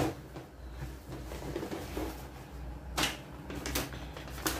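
Hands kneading soft, oiled mandazi dough, with two sharp knocks, about three seconds in and again near the end.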